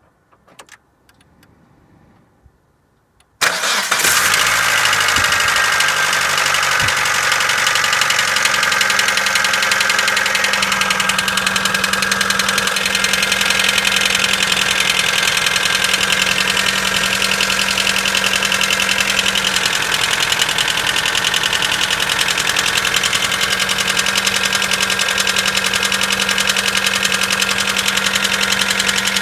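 Mitsubishi 4G94 inline-four engine cold-started about three and a half seconds in, catching at once and then idling steadily with a fast, even knock: the knock it makes when cold.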